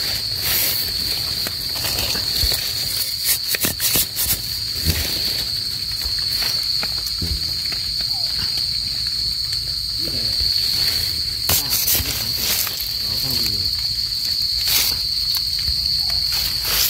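Steady high-pitched chirring of night insects, with scattered short crackles and rustles as hands dig in sandy soil and pull up termite mushrooms.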